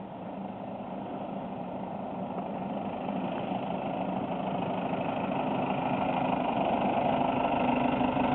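A 1954 Chevy pickup powered by a four-cylinder Cummins 4BT diesel drives toward the listener, its engine note steady and growing gradually louder as it approaches.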